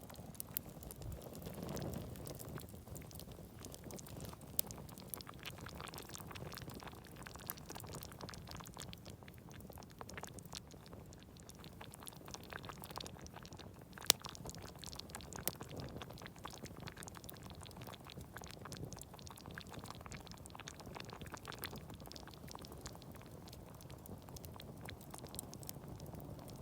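A pot simmering over a campfire, giving a faint, steady low bubbling, with scattered sharp crackles from the fire.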